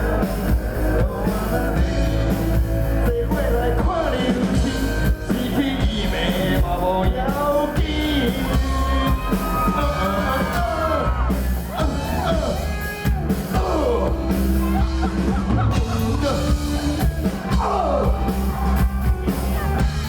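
Rock band playing with drums, bass and electric guitar, the music dense and continuous, with bending melodic lines near the middle and voices yelling over it.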